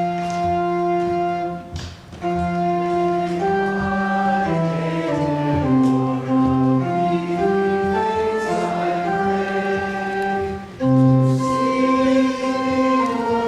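Choir singing slow, long-held chords with organ accompaniment, with a brief pause about two seconds in.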